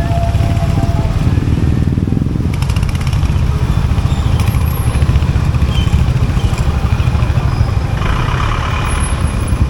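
Royal Enfield Hunter 350's 349cc single-cylinder J-series engine running steadily, its exhaust giving an even, low, pulsing thump.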